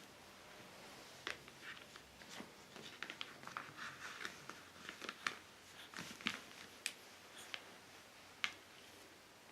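Faint spoon-feeding sounds of a baby eating mashed banana: scattered soft clicks and small wet smacks, the sharpest a few isolated ticks.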